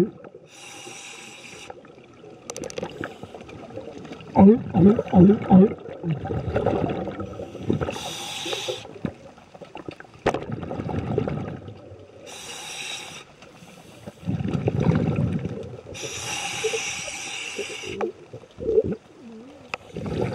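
A scuba diver breathing through a regulator underwater: four bubbly exhalations a few seconds apart. About four seconds in there is a short run of about four low, pitched grunts.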